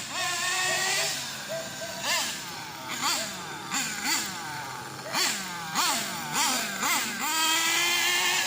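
SH PT28 two-stroke nitro engine of a 1/8-scale RC buggy, revving in a series of short throttle blips, each a quick rise and fall in pitch, with held high revs at the start and again near the end.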